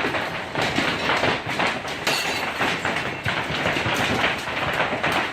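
Heavy hail pelting hard surfaces: a dense, irregular clatter of many hailstone impacts.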